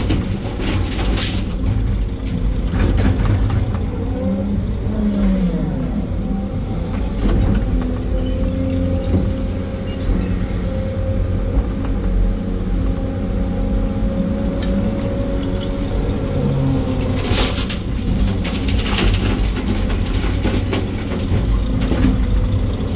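Sany SY385 excavator's diesel engine and hydraulics working under load, heard inside the cab, while it digs and loads a dump truck; a hydraulic whine rises and falls in pitch a few times as the boom and swing move. A cluster of sharp clatters of soil and rock comes about three quarters of the way through.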